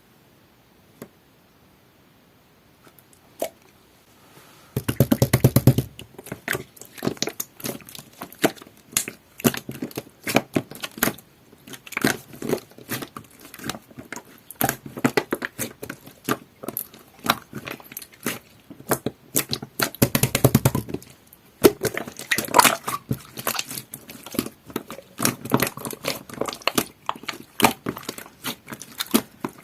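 Jelly-textured slime being squished and stretched by hand, making dense, irregular wet clicks and crackling pops. It is quiet for the first few seconds, then the clicking starts, with two louder, longer squishes about five seconds in and again around twenty seconds.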